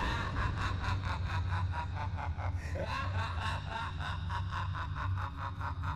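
A man's long, drawn-out horror-film laugh, about five pulses a second, over a steady low drone.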